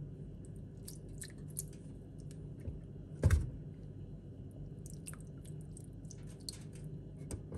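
Soft, wet handling of blanched broccoli florets being set into a plastic food-chopper bowl, with small clicks and one louder knock about three seconds in as a floret lands. A low steady hum sits underneath.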